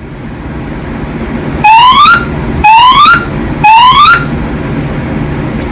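Fire alarm voice-evacuation speakers sounding three rising whoop tones about a second apart: the three-pulse evacuation signal that alternates with the spoken fire message. A steady low hum runs underneath.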